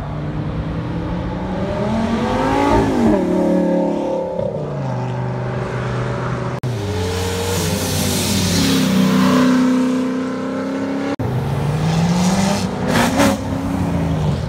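Performance car engines accelerating hard past, one after another with abrupt cuts: a green Lamborghini's engine revs up and falls back, then a Chevrolet SS sedan's V8, then a C7 Corvette revving up with a few sharp cracks near the end.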